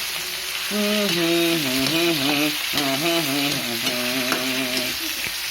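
Pork sizzling as it is sautéed in oil in a pan, a steady frying hiss. From about a second in until near the end, a person hums a tune over it.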